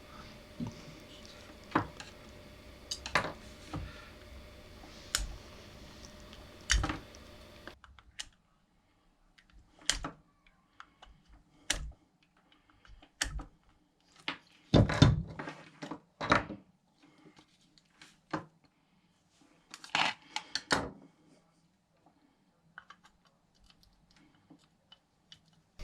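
Irregular small clicks, taps and scrapes of a hand tool working at the motor side of a Lay-Z-Spa pump housing, picking out an old rubber bush stuck inside it.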